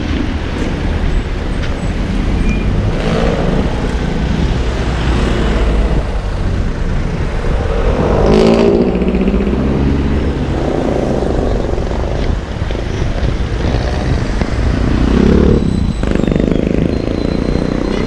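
Road traffic passing close by on wet asphalt: a steady rumble of engines and tyre noise. One vehicle's engine passes loudest about eight seconds in, and another near the end.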